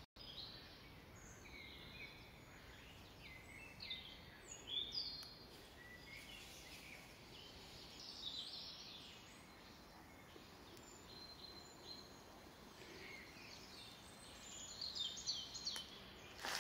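Several wild birds chirping and singing in short, quick calls, faint over a steady background hiss, getting busier near the end.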